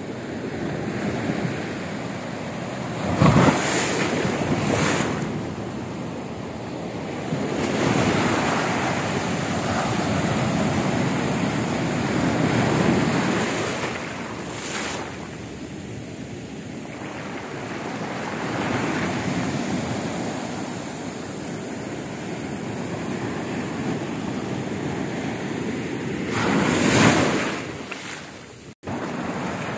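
Ocean surf: waves breaking and foam washing up the sand and draining back, swelling and ebbing every few seconds, with gusts of wind buffeting the microphone several times. The sound cuts out for an instant near the end.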